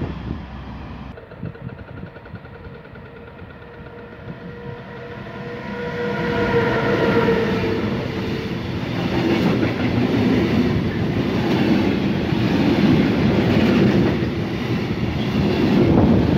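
Freight train wagons rolling past close by: a steady rumble with wheel clatter over the rail joints. A sustained pitched tone swells about six to eight seconds in as the train comes near.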